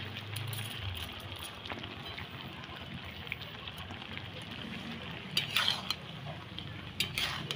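Milky vegetable curry (shukto) simmering and bubbling in a wok while a metal spatula stirs through it, with brief scrapes of the spatula against the pan about five and a half and seven seconds in.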